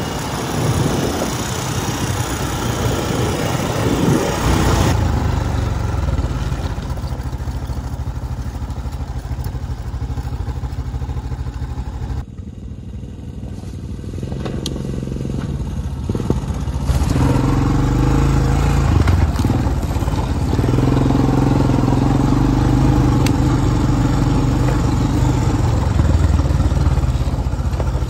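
ATV engine running as the quad is ridden along a trail, its engine note rising and falling with the throttle. The note is quieter for a few seconds near the middle, then louder and steadier through the last ten seconds.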